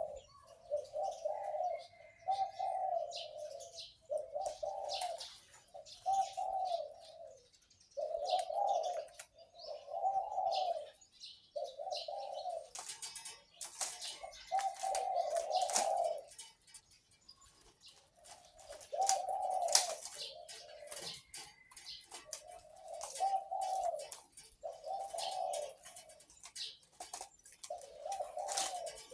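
Caged zebra dove cooing in a long run of low, rounded notes, one after another with brief pauses. This is the deep 'big-voiced' coo prized in Thai dove-song breeding. Sharper chirps from other small birds come and go above it.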